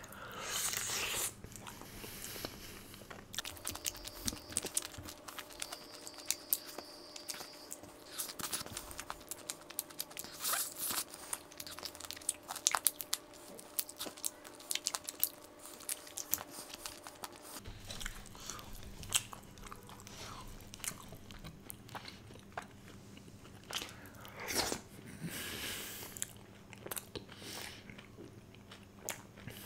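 A person biting and chewing food close to the microphone, with many short, irregular wet mouth clicks and crunches. They are eating a chicken wing piece from butter chicken.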